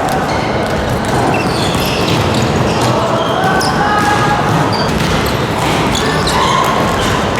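Basketballs bouncing and thudding on a wooden gym floor, with the steady clatter and voices of a busy gymnasium behind.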